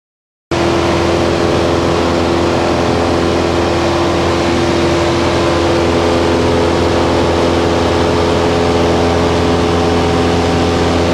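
Piper Super Cub's engine and propeller at steady cruise power, a loud unchanging drone heard from inside the cockpit, cutting in suddenly about half a second in.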